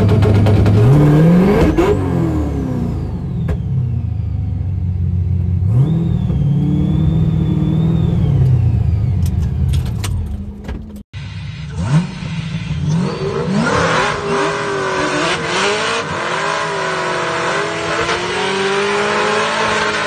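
Supercharged LS3 V8 of a 2004 Pontiac GTO, heard from inside the cabin, revving while the car sits stationary at the line. During a held rev a high supercharger whine rises with the engine note, and both drop away together. After a sudden cut about eleven seconds in comes a different stretch of engine sound, its pitch rising and falling.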